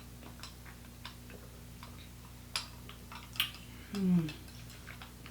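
Quiet sipping of a drink through a plastic straw, with small scattered clicks of lips and mouth. About four seconds in comes a short voiced sigh, falling in pitch.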